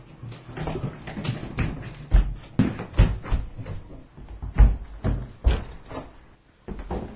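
Heavy footsteps thudding in quick succession, about two a second, as someone runs through the house.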